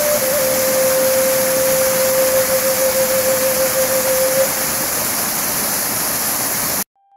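Rushing water of a cascading mountain stream, with a long held native flute note over it that fades out about five seconds in. The sound cuts off suddenly near the end.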